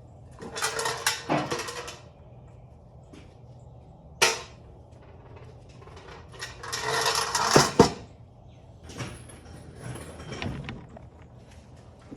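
Metal tools and parts being handled during a motorcycle teardown: clattering and clinking in several bursts, with a sharp click about four seconds in.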